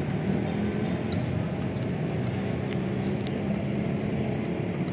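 Steady low outdoor background rumble with a faint continuous hum, and a few faint clicks.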